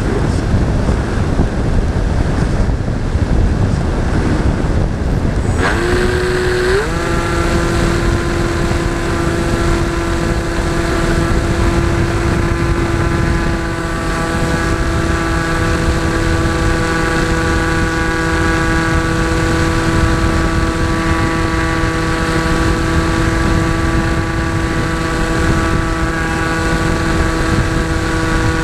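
Wind rushing over the microphone of an onboard camera on a radio-controlled model airplane, with the plane's motor throttled back for the first few seconds. About six seconds in the motor throttles up with a short rising whine, then holds a steady high-pitched whine.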